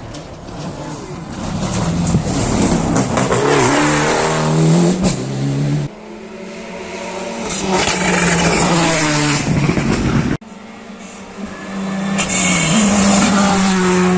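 Rally cars at full throttle on a stage, engines revving up and dropping back through gear changes as they approach and pass. The sound comes in three separate passes, each cut off abruptly.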